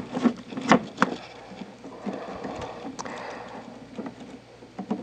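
Wires and plastic crimp connectors of a dehumidifier's wiring harness handled by hand: light rustling with a few sharp clicks as the leads are gathered into a bundle.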